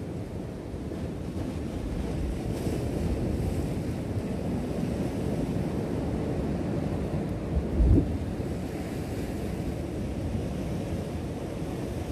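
Ocean surf washing against a rock ledge, with wind buffeting the microphone. A short, loud low thump about eight seconds in.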